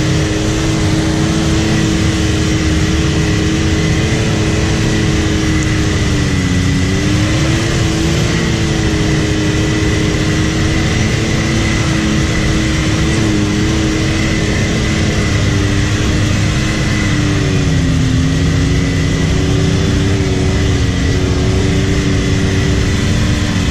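Can-Am Maverick X3 turbo side-by-side's engine running steadily at cruising revs, heard from inside the cab, with a thin steady high whine over it. The revs dip and recover about a quarter of the way through, and drop again about three-quarters through.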